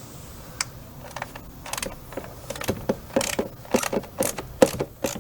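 Socket ratchet clicking as a 10 mm bolt is backed out: a single sharp click about half a second in, then from about halfway a run of quick, even clicks, about four a second.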